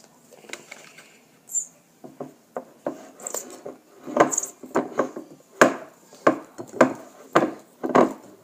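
A utensil knocking and scraping against a bowl while slime ingredients are stirred: scattered taps at first, then regular strokes about one and a half times a second from halfway through.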